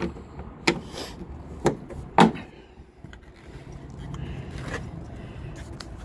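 A few sharp clicks and knocks from a latch on a school bus body being handled, the loudest about two seconds in. A low steady hum comes in about two-thirds of the way through.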